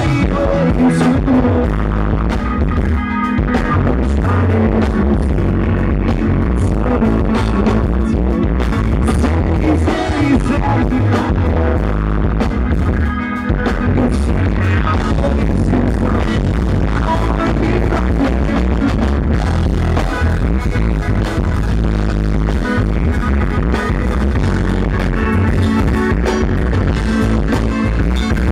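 Live rock band playing loudly, with electric guitar, bass guitar, keyboard and drums, recorded from within the crowd. The music drops back briefly about halfway through.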